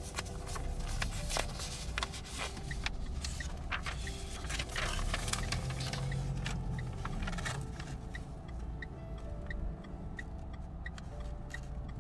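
Sheets of paper handled and rustling, with scraping, over a steady low rumble. In the second half comes an even ticking of about two to three ticks a second.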